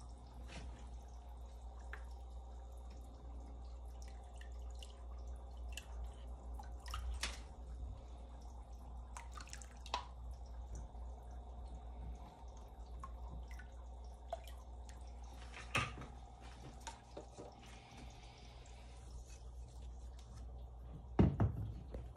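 Water dripping and trickling around aquarium fry tubs, with scattered light clicks, over a steady low hum. A louder knock comes about a second before the end.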